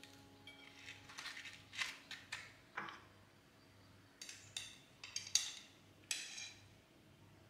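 A series of short scrapes and clinks from kitchenware being handled, about ten in all, irregularly spaced.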